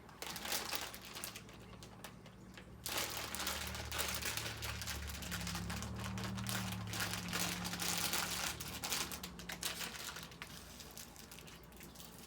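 Crinkly plastic wrappers of chewy fruit candies being handled close to the microphone. The crackling gets louder about three seconds in and fades out near the end.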